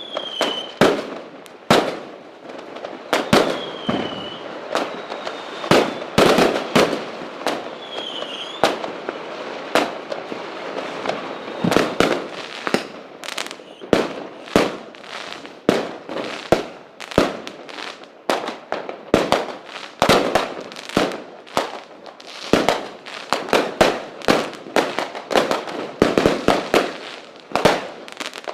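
Fireworks going off: a rapid, irregular string of sharp bangs and pops over continuous crackling. Three short falling whistles come in the first ten seconds or so.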